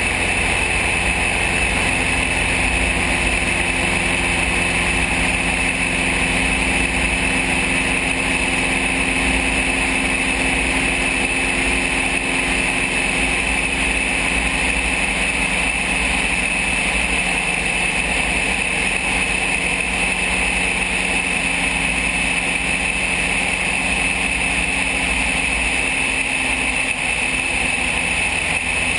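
Van's RV-7 light aircraft in flight: its piston engine and propeller hold a steady drone, heard from outside the cabin under the wing.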